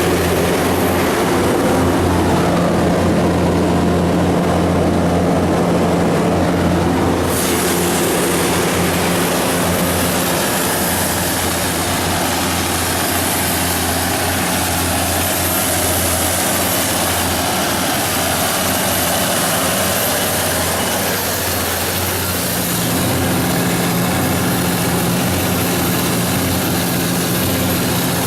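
John Deere 6068HF150 six-cylinder diesel engine of an SDMO 170 kW generator set running at a steady speed, a deep even hum with fan and air hiss over it. About seven seconds in the hiss suddenly gets louder and brighter.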